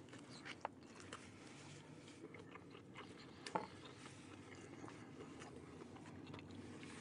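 A person biting into and chewing a chicken, lettuce and tomato spinach wrap: faint mouth sounds with a few sharp crunchy clicks, the loudest a little past halfway, in a car's cabin.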